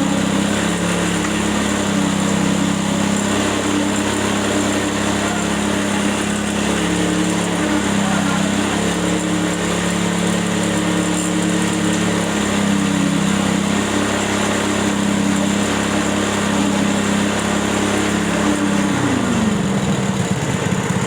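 A small engine of the concrete-pouring machinery running steadily at constant speed. Its pitch drops sharply near the end as it slows down.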